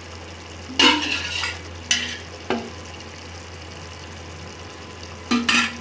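Steel spoon knocking and scraping a few times as spoonfuls of ghee go into mutton frying in a pressure cooker, with a low steady sizzle in between.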